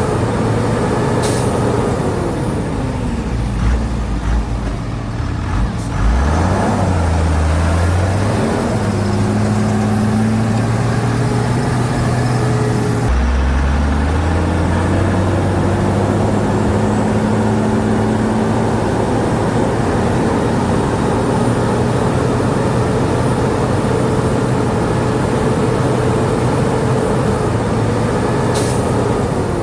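Heavy diesel earthmoving engine running under load. Its pitch drops a few seconds in, again around the middle and near the end, then climbs back as it revs up.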